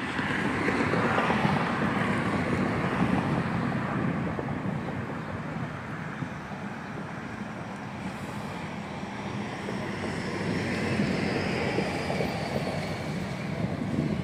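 Outdoor urban traffic noise, a steady rush that swells about a second in and again about ten seconds in, with a faint high whine sliding down near the end.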